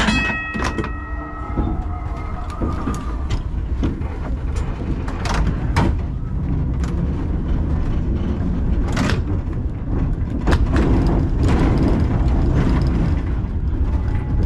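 Two-axle museum tram under way: a steady low rumble of motors and wheels with irregular clacks and knocks as the wheels pass rail joints, growing a little louder about ten seconds in. A brief ringing tone sounds right at the start.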